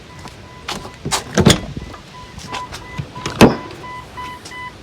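A Jeep Cherokee's warning chime beeping over and over, with two loud clunks and rattles as the rear liftgate is handled, one about a second in and one near three and a half seconds.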